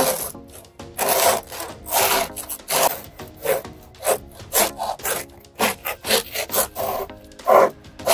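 Long knife sawing back and forth through the crust of a home-baked loaf, a crunchy scrape with each stroke, about two strokes a second.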